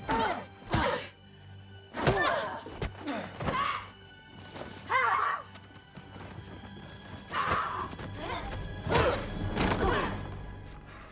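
Movie fight sound mix: a series of heavy punch and body-slam thuds, with strained grunts and cries between them, over a music score of held notes.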